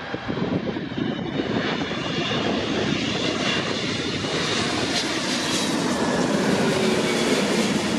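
Twin-engine Boeing 777-200 jetliner on final approach, its jet engines' noise building slowly as it comes in low overhead, with a faint high whine over the broad engine noise.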